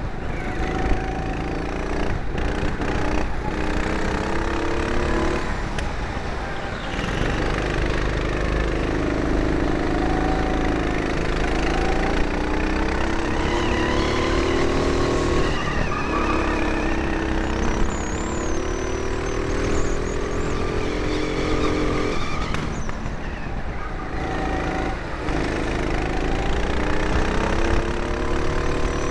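Four-stroke rental kart engine running hard. Its pitch climbs over several seconds as it accelerates and drops back each time it slows, repeating several times. A few sharp knocks come about two to three seconds in.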